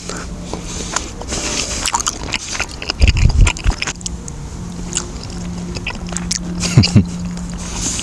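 A person biting and chewing tteokbokki (Korean rice cakes in sauce) close to the microphone: wet mouth clicks and a short, low, thudding burst about three seconds in. A steady low hum continues underneath.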